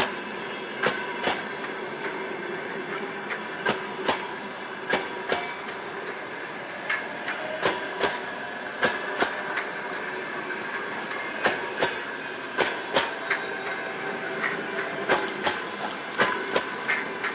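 Passenger coaches' wheels rolling past on the rails, clicking over rail joints in quick pairs every second or so, over a steady rolling rumble with a faint steady whine.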